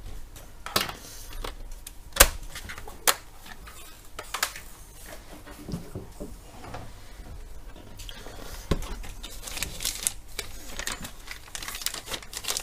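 Scattered clicks and light knocks as hardware is handled, the sharpest about two seconds in. In the last few seconds a plastic bag holding a laptop display unit crinkles.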